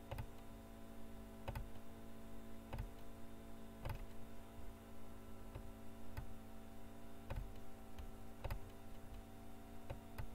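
Computer mouse clicking at irregular spacing, about once a second, over a steady electrical hum.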